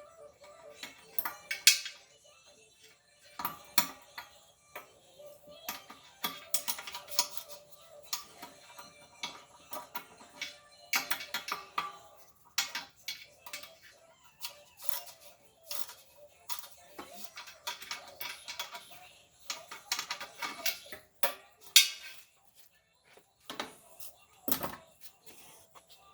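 Irregular metallic clinks, taps and knocks of tools and metal parts being handled while an air compressor's pump unit is fitted together.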